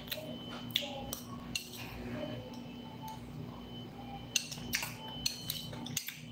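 Metal spoon clinking and scraping against a ceramic bowl while eating: a series of light, irregular clinks, bunched into two groups, over a steady low hum.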